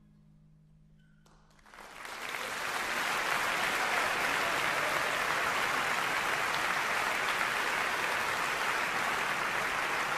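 Audience applause breaking out after about a second and a half of near quiet, rising quickly and then holding steady, at the close of a soprano aria with orchestra.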